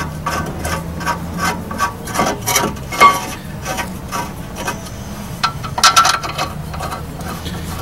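Light metallic clicks and taps as rear disc-brake parts are handled at a new brake rotor, about three a second, with a sharper knock about three seconds in and a short cluster of louder metal clanks about six seconds in.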